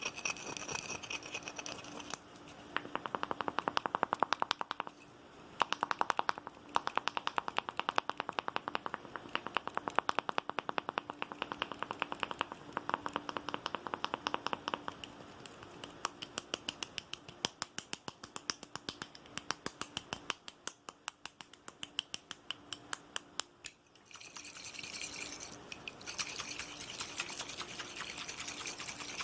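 Fast, aggressive ASMR tapping: quick runs of sharp taps, many a second, with a short pause about 5 s in, stopping about 24 s in. A steady hiss is heard at the start and again from about 24 s on.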